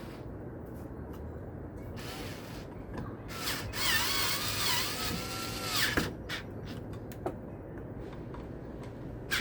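Power drill driving in a ceiling fan blade screw, its motor whining for about two and a half seconds with the pitch wavering, followed by a few sharp clicks.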